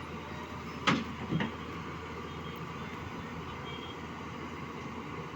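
Heavy diesel machinery running steadily, with two loud metallic clunks about a second in, half a second apart.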